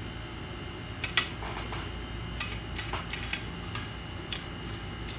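Scattered light clicks and taps of small hand tools being handled on a repair bench, over a steady low hum.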